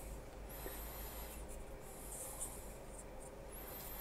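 Faint scratching of a paintbrush's bristles stroking enamel wash over a small plastic model, in a few short strokes.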